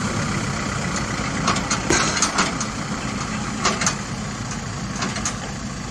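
Diesel engine of an XCMG XS203J single-drum road roller running steadily as the machine drives, with a few short, sharp knocks or rattles on top.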